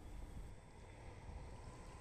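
Faint, steady background noise of outdoor ambience: a low rumble with a light hiss over it, and no distinct event.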